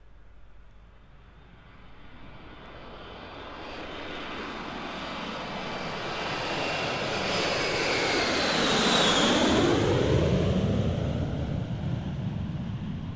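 An airplane flying past: its engine sound builds from faint to loud, and its high whine drops in pitch as it goes by about nine seconds in, leaving a low rumble.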